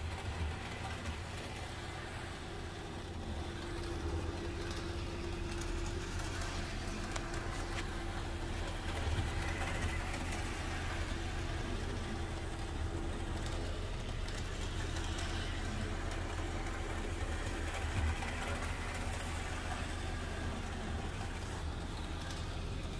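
Model steam locomotive running steadily round a small loop of track, its motor and wheels heard over a steady low rumble.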